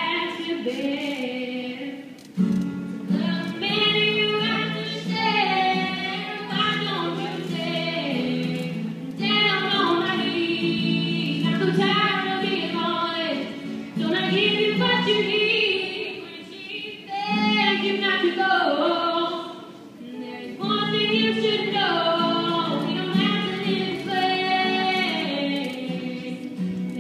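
A girl singing solo while playing an acoustic guitar, in phrases separated by short pauses.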